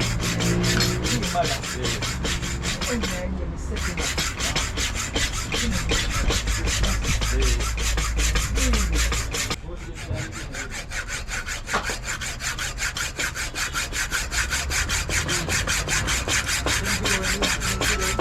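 Background music with a quick, even hi-hat beat over a stepping bass line.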